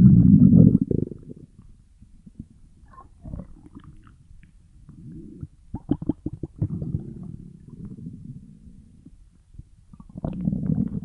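Stomach growling: low gurgling rumbles that come and go, loudest right at the start and again near the end, with a run of short crackly gurgles midway.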